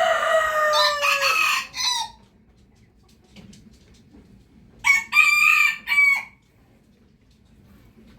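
Rooster crowing twice: one crow already under way ends with a falling tail about two seconds in, and a second, shorter crow comes about five seconds in.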